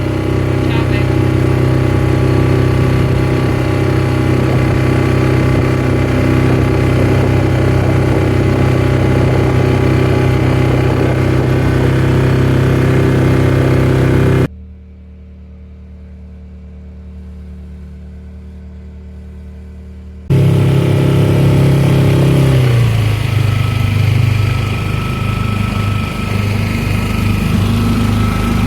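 A boat engine running steadily at a constant speed. About halfway through it drops abruptly to a much quieter steady hum for about six seconds, then comes back loud, shifting slightly in pitch a couple of seconds later.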